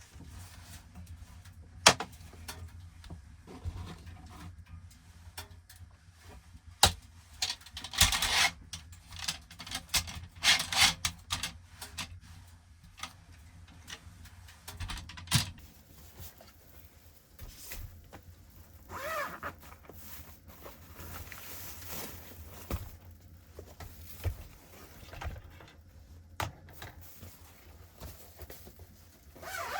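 Handling noises in a small enclosed space: scattered sharp clicks and knocks, with bursts of rustling around 8 and 11 seconds, over a steady low hum.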